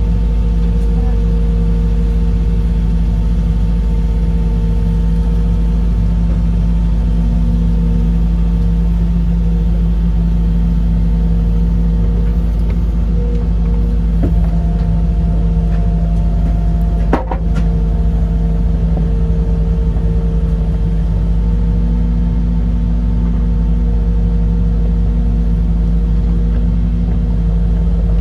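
Excavator's diesel engine and hydraulics running steadily, heard from inside the operator's cab while the boom swings a hanging piling. A higher whine comes in about halfway, and a single sharp click sounds about two-thirds of the way through.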